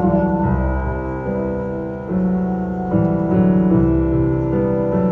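Live band playing a slow piano-led ballad: sustained piano chords change about every second, with a lap steel guitar note sliding down near the start.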